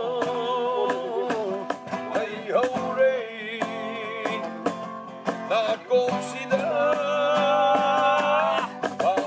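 A man singing while strumming an acoustic guitar, holding one long note for about two seconds near the end.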